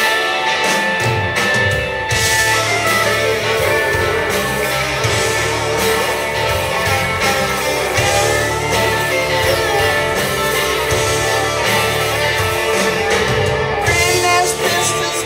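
Rock band playing live: several electric guitars over bass and drums.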